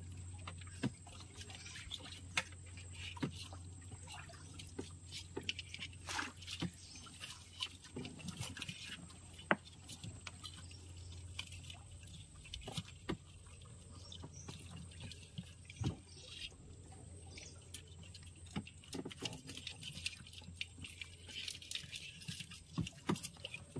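Water dripping and splashing, with many irregular small clicks and taps, as a baited crab line is hauled up out of the river; a faint steady low hum runs underneath.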